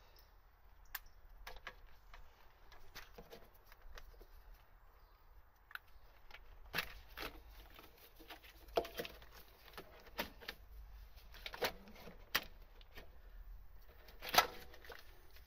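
Hands working among the plastic parts and wiring of an engine bay: scattered light clicks, taps and rustling. These come more often from about halfway, with a sharper knock near the end.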